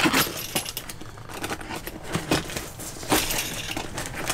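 Packing tape being slit with a knife and a cardboard box being handled and pulled open: a run of irregular scrapes, crinkles and knocks, the loudest about three seconds in.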